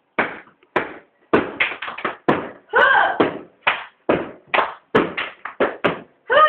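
Feet thudding on a wooden floor as two people jump about, a quick irregular run of thumps about two to three a second. A voice calls out briefly about halfway through.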